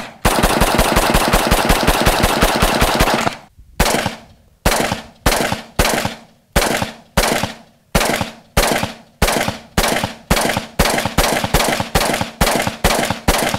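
AR-15 rifle firing 5.56 rounds from a Magpul PMAG: a very rapid string of shots that run together for about three seconds, then a short pause and steady single shots about two a second, coming a little faster toward the end.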